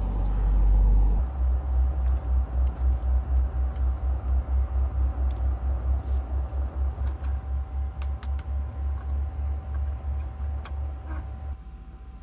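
Small wood-burning camp stove burning hard under a wok of water, its fire pulsing in a low rumble about four times a second, with a steady hum over it and a few faint crackles. The rumble drops away suddenly near the end.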